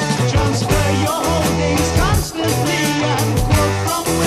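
Early-1970s rock recording in an instrumental passage: a drum kit, bass and guitar playing together, with bending guitar notes over the beat.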